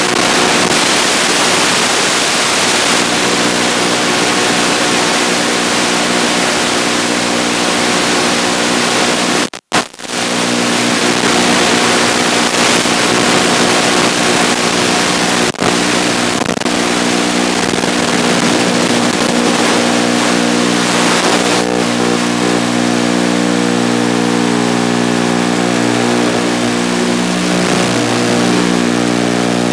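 FPV quadcopter's brushless motors and propellers running with a steady whine over a constant hiss. The sound cuts out for a moment about ten seconds in, and the hiss thins out a little past twenty seconds in.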